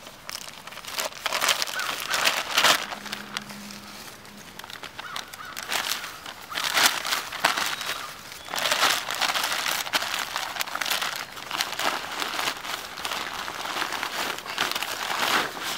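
Dry fallen leaves crunching and rustling underfoot while a pack is handled, in irregular bursts.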